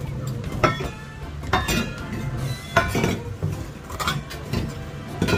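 Plates and a fork clinking and clattering as dishes are set out on a wooden table, a sharp clink with brief ringing every second or so.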